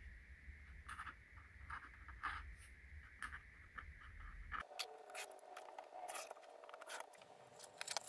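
Faint scratchy strokes of a Tombo Fudenosuke brush pen writing a signature on watercolour paper, a few short strokes spread out over a low hum. About halfway through the hum cuts off abruptly, and faint light handling sounds follow.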